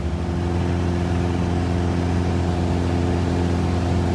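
Light aircraft's propeller engine droning steadily in flight as heard in the cockpit, a constant pitched hum with several steady tones.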